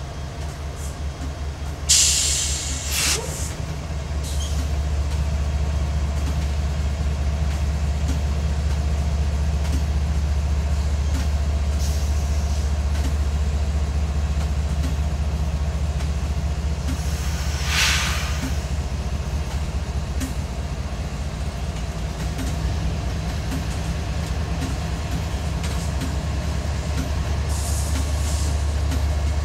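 A GE ES44AC/AC45CCTE diesel-electric locomotive's GEVO V12 engine drones low and steady as the unit crawls past leading a freight train, growing louder about four seconds in. Air hisses sharply twice, about two seconds in and again near the middle.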